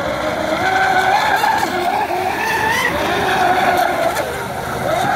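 Fine Design Marine 'Snack Attack' RC catamarans running at speed on 12S electric power: a high motor-and-propeller whine that rises and falls in pitch over a hiss of spray.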